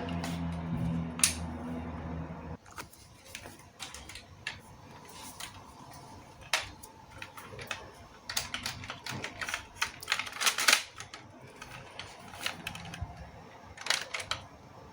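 Sharp, irregular clicks and clatter of hard plastic parts of a LEGO Technic toy rifle being handled, bunched into quick runs near the middle and again near the end. A low steady hum cuts off suddenly about two and a half seconds in.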